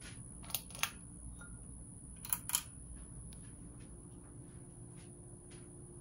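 Pull-chain switch on a Hampton Bay Jericho III ceiling fan clicking: two quick pairs of clicks, about half a second in and again about two seconds in.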